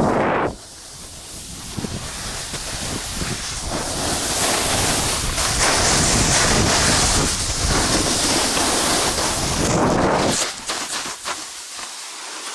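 Snowboard sliding and scraping over snow, with wind rushing over the camera microphone during the run. The rushing noise drops away about ten seconds in as the rider comes to a stop and goes down in the snow.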